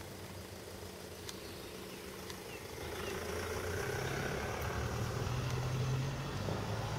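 A low, steady engine hum that grows louder from about three seconds in.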